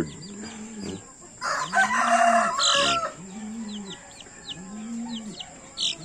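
Native chicken chicks peeping in short, high, falling notes. A rooster crows once from about a second and a half in, over a low note that comes back about every second and a half.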